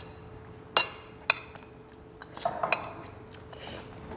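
Metal spoons clinking against ceramic bowls and plates while eating: several sharp clinks, the loudest about a second in, with a faint steady hum underneath.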